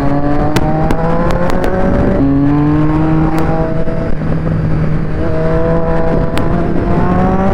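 Triumph Street Triple 675's three-cylinder engine pulling hard under acceleration, its pitch climbing. It drops abruptly about two seconds in as the rider shifts up a gear, then rises again as the bike keeps accelerating, with wind rush over the helmet camera.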